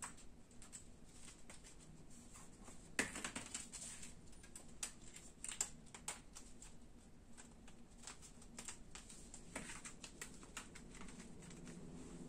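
Light, irregular clicking and rattling of a small steel wire-mesh basket being handled and shaped by gloved hands, with a sharper click about three seconds in.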